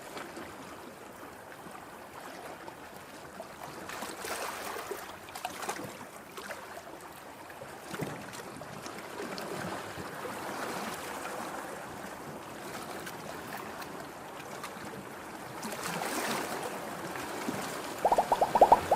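Ocean waves washing on a shore, a steady rush that swells a little about four seconds in and again near the end. In the last second a rapid run of even clicks begins.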